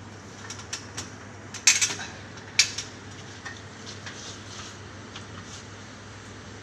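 Scattered sharp metallic clinks and clatters, loudest in a quick cluster about two seconds in and once more a little later, over a steady low hum.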